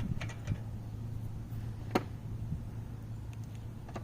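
Hand tools clicking during bolt work: a few faint clicks and one sharper click about two seconds in, over a steady low hum.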